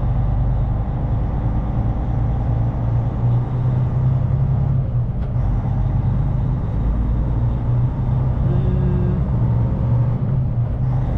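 Steady low drone of a Kenworth T880 heavy-haul truck's Cummins diesel engine running while driving, heard from inside the cab.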